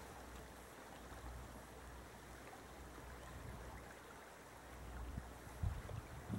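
River water flowing steadily, with a low rumble underneath and a couple of soft thumps near the end.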